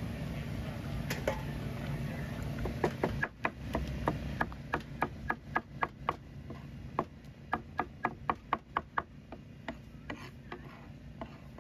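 A cleaver chopping braised pork skin on a plastic cutting board: a quick run of sharp knocks, about three or four a second, that thins to a few scattered chops near the end. Before the chopping starts, a steady low rumble.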